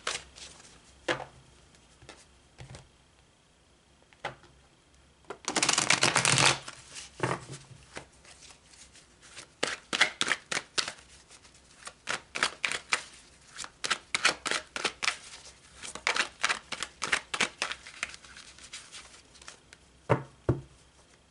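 Deck of tarot cards being shuffled by hand. A dense rush of card noise comes about six seconds in, then a long run of rapid card-on-card flicks, and two knocks near the end.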